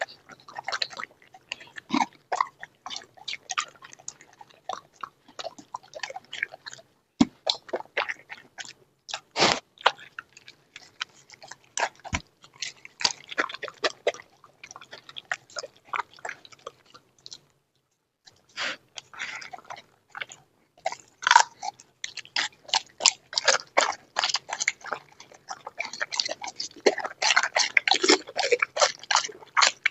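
A dog chewing and crunching raw quail, bones included, in quick irregular bites, with a brief pause just past halfway and the crunching thickest near the end.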